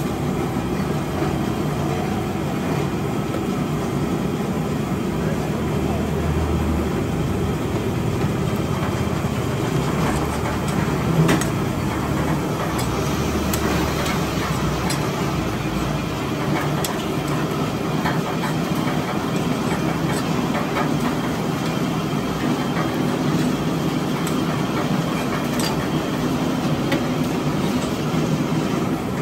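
Steady low machine hum of a food stall, with scattered sharp clicks and scrapes of a long knife and metal tongs against the stainless-steel counter and rotisserie as doner kebab meat is carved and served; the loudest click comes about eleven seconds in.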